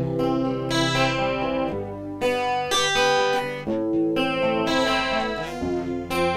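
Guitar played through the Ashley Point 6 mixer's DSP Multi Pad effect, picking and strumming a sequence of chords, each new chord struck about once a second and ringing on into the next.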